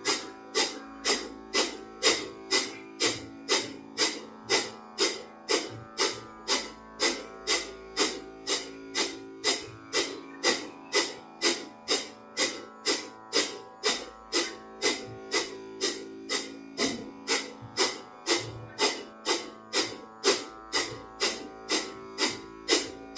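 Kapalabhati breathing: short, forceful exhales through the nose, about two a second in an even rhythm. Soft background music with plucked strings plays under it.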